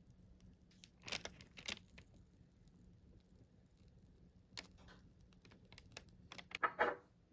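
Light clicks and rustles of hands handling kitchen things, in three short clusters, the loudest near the end.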